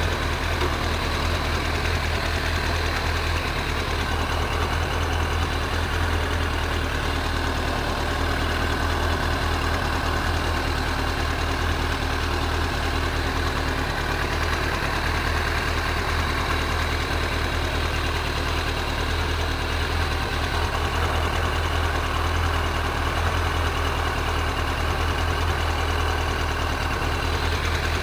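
An engine running steadily at an unchanging speed, with a strong low hum and no revving.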